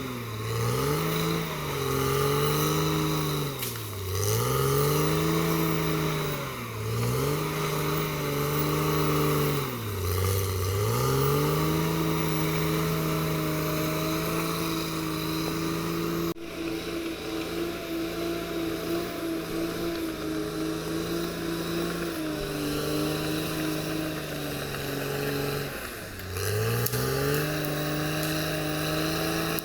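Caterpillar D6R XL bulldozer's diesel engine running hard. Its pitch sags and recovers every two to three seconds at first as the engine lugs under load, then holds steady at high revs, with one more dip near the end.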